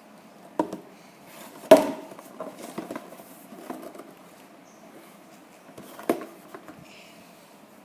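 Hard plastic Lego Technic parts knocking and clicking as the model car is handled: a few irregular knocks, the loudest about two seconds in and another near the end, with lighter taps in between.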